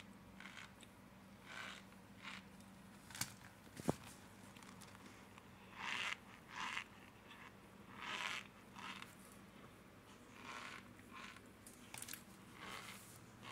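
Chunks of cornstarch and tapioca starch being crushed and pressed into powder: a run of soft, irregular crunches, with a sharp click about four seconds in that is the loudest sound.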